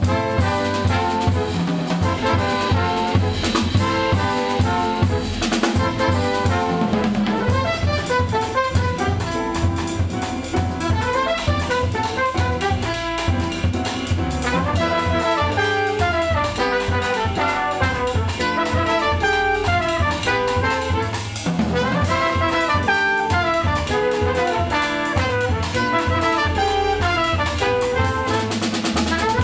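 Small jazz band playing an uptempo tune: trumpet, alto saxophone and trombone over bass and drum kit.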